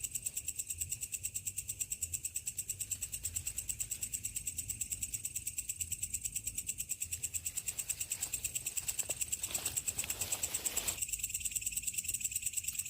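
Night insects chirping in a steady, even pulse of about seven beats a second, with a brief rustle about ten seconds in.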